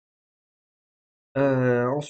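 Dead silence for just over a second, then a man's voice comes in about a second and a half in, holding one long vowel with a slightly falling pitch just before he speaks again.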